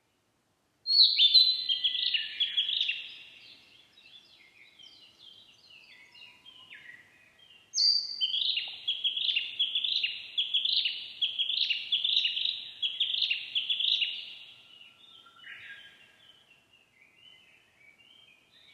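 Narcissus flycatcher singing: two long runs of quick, high whistled notes, one starting about a second in and the other about eight seconds in, each fading into quieter trailing notes.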